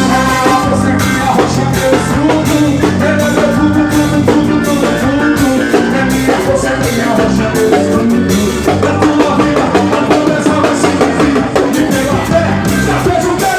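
Forró worship song with a singer over a band, a drum kit keeping a steady, driving beat.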